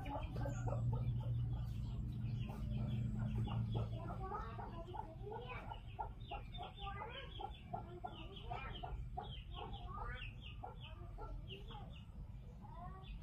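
Chickens clucking and chicks peeping, many short calls in quick succession. A low steady hum lies under them for the first few seconds.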